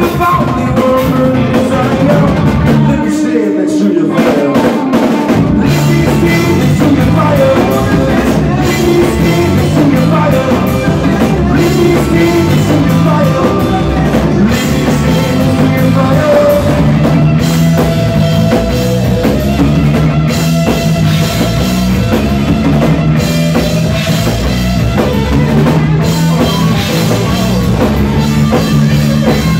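Live rock band playing: electric guitar, bass guitar and drum kit with a male lead vocal. About three seconds in, the low end drops away for a couple of seconds, then the full band comes back in.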